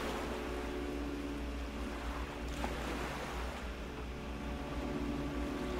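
Soft ambient background music: sustained, slowly changing chords over a steady wash of noise and a low hum.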